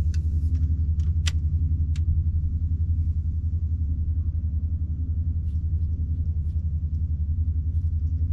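A steady low mechanical rumble with a fast, even pulse, like a motor running. Over it come a few light clicks in the first two seconds and faint ticks later on, from a spinning reel as a topwater lure is retrieved.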